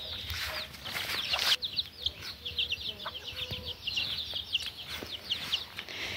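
A flock of chicks and ducklings peeping: short, high cheeps repeated several times a second, almost without a break.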